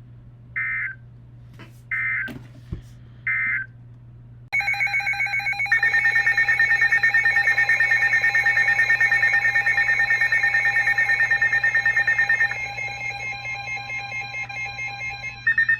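Emergency Alert System tones on a weather radio broadcast: three short digital data bursts, then about four seconds in a loud, rapidly pulsing multi-tone alert signal that drops in level about twelve seconds in and comes back loud near the end, leading into the next warning.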